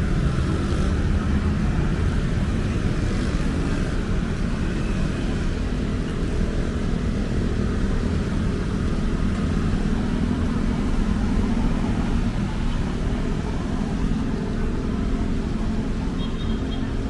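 Steady rumble of city street traffic, with a vehicle engine swelling and fading about halfway through.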